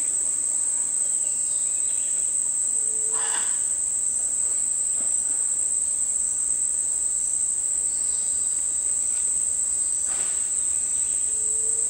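Steady, high-pitched insect drone of tropical forest insects. Two faint short calls rise over it, about three seconds in and near the end.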